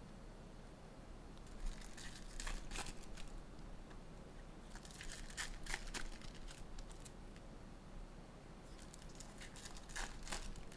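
Trading-card packs being torn open and their wrappers crinkled by hand, in three short bouts of crackling about two, five and nine seconds in.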